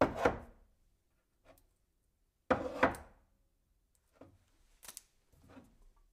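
Kitchen utensils and dishes knocking and clattering on a worktop as they are handled. A sharp knock comes at the start, two more follow close together about two and a half seconds in, then a few fainter taps.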